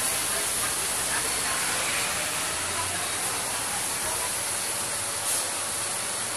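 Steady rushing hiss at an even level, with faint background chatter of people.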